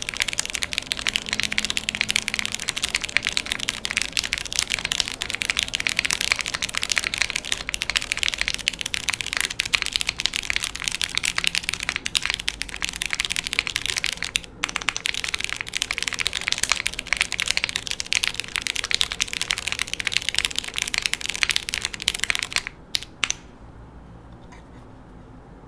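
Fast, continuous typing on a gasket-mounted TKD Cycle7 mechanical keyboard with lubed Cherry MX Brown switches, an aluminum plate and GMK keycaps: dense keystroke clacks with one short break midway. The typing stops a few seconds before the end, after a couple of last keystrokes, leaving only a faint background hiss.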